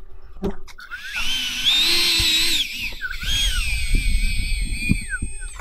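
Electric ducted fans on a 3D-printed rocket spun up in two short runs, a high motor whine with a wavering pitch, the second run winding down near the end. The fans are being tried after one of them blew and another broke.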